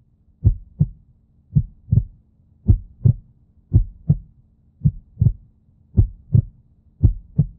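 Heartbeat in a steady lub-dub rhythm: paired low thumps, about one pair a second, with a faint steady hum beneath.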